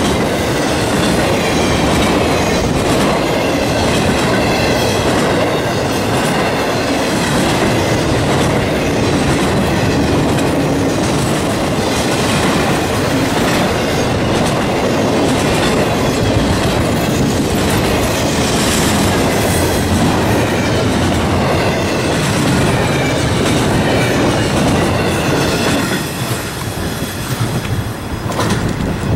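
Intermodal freight cars rolling past: a steady rumble and clickety-clack of steel wheels over the rails, with a wavering high wheel squeal at times in the first half. The sound eases a little near the end.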